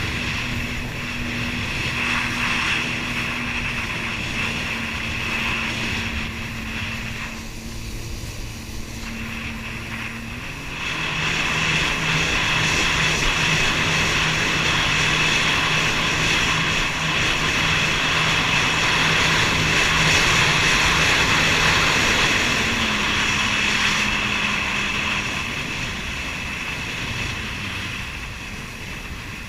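Jet ski engines running at speed, a steady motor tone under a heavy rush of wind and water spray. It grows louder about eleven seconds in, the engine note shifting, and eases off near the end.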